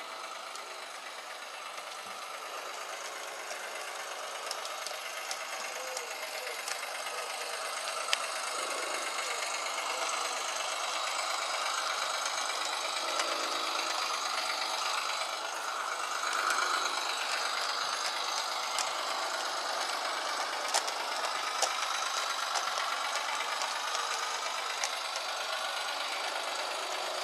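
Garden-railway model diesel locomotive hauling three loaded ballast wagons: a steady whirr of motor and gears with a faint wavering whine, wheels and wagons rattling along the track, and a few sharp clicks. It grows louder over the first dozen seconds as the train comes closer.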